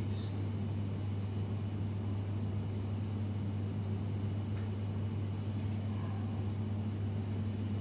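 A steady low hum with a fainter higher overtone, unchanging throughout, with nothing else standing out above it.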